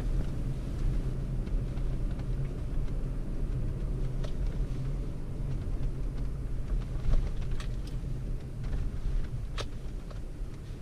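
Vehicle heard from inside the cab while driving slowly down a rough dirt track: a steady low engine and road rumble, with a few sharp clicks and rattles from the cab.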